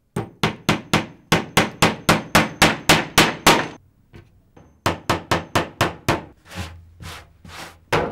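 Hammer driving nails into wooden boards: a quick, even run of blows at about four a second, a short pause about four seconds in, then more blows that grow softer near the end.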